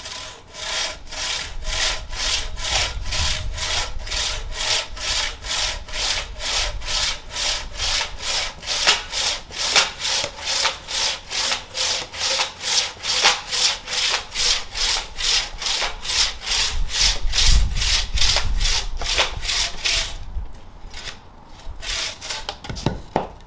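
A crosscut handsaw with a dull, long-unsharpened blade cutting through a log in steady back-and-forth strokes, about five strokes every two seconds. The sawing stops about three seconds before the end.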